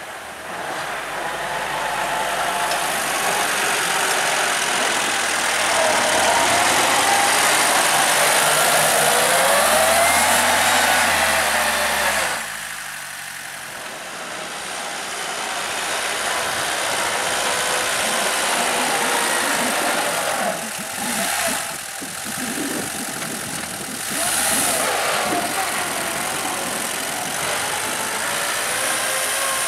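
Homemade mini tractor's engine running under load as it pushes snow with a front blade, its pitch rising and falling with the throttle. The sound grows louder as the tractor comes closer, drops suddenly about twelve seconds in, then picks up again.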